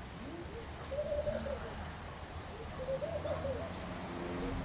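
A dove cooing, a soft, low coo repeated every second or two.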